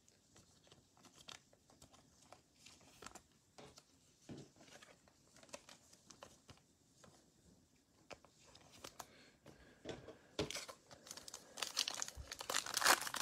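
Faint clicks and rustles of trading cards being handled, then from about ten seconds in the crinkling and tearing of a shiny trading-card pack wrapper being ripped open.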